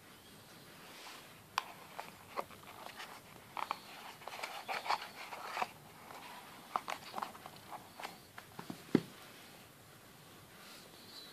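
Handling noise from unpacking a toothbrush box: scattered clicks, taps and rustles of cardboard packaging and plastic parts, with a sharper knock about nine seconds in.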